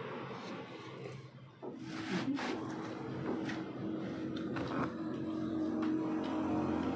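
Dishes and utensils knocking and clinking against a plastic plate while food is served, over a steady low hum that sets in a couple of seconds in and slowly grows louder.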